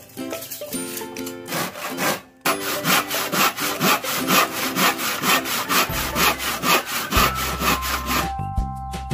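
Handsaw cutting through a wooden board in quick, even back-and-forth strokes, about three a second, starting a couple of seconds in and stopping shortly before the end. Background music plays throughout.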